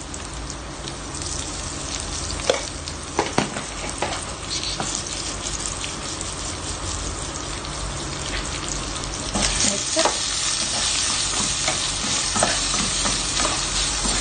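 Sliced onions, green chilies and garlic sizzling in hot oil in a stainless steel pot, with a few sharp knocks from stirring. The sizzle gets louder about two-thirds of the way in.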